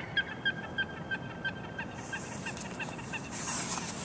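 A gull giving a quick run of short, high calls, about three a second, that stop a little after three seconds in. A high hiss comes up in the second half.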